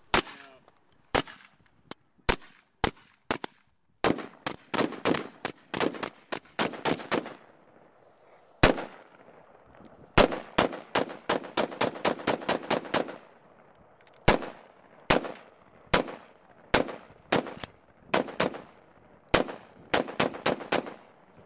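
Suppressed 5.56mm M16-type rifle firing. Single shots come first, then two long rapid strings of shots a few seconds apart, then more single and paired shots.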